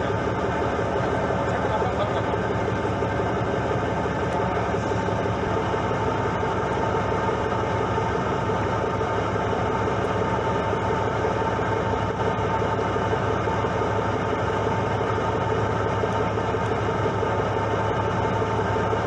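Fishing boat's engine running steadily: a constant drone with a stack of steady hums that holds the same pitch and level throughout.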